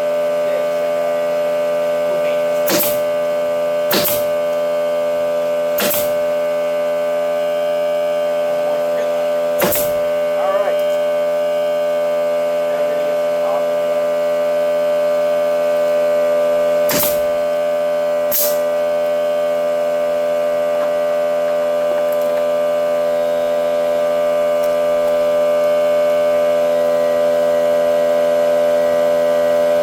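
Air compressor running with a steady hum while a pneumatic stapler loaded with 1-inch staples fires six sharp shots, four in the first ten seconds and two more close together later on.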